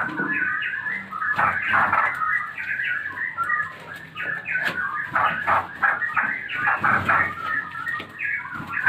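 Straw-headed bulbul chicks calling: a continuous run of rapid, scratchy chirps, many close together.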